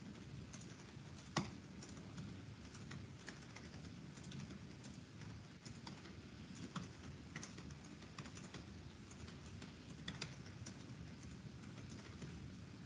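Faint, irregular keystrokes on a computer keyboard over low steady background noise, with one sharper click about a second and a half in and another near ten seconds.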